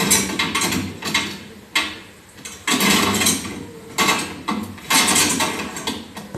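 Foley sound effects: a series of about five loud hits with clatter, each a noisy burst of under a second, a second or so apart.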